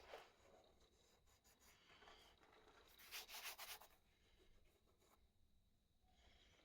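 Faint rubbing and scraping on a restored Super Cub part during body-filler work, with one louder stretch of about a second in the middle.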